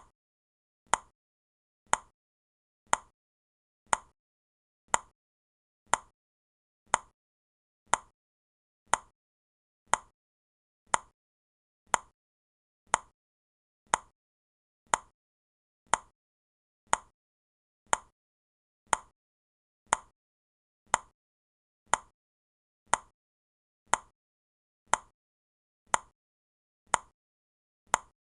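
A countdown timer's clock tick, sounding sharply and evenly once a second to mark the seconds as they count down.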